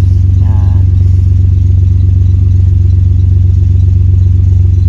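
Car engine idling steadily, heard inside the cabin as a deep even hum with a fast regular pulse. A brief wavering tone sounds about half a second in.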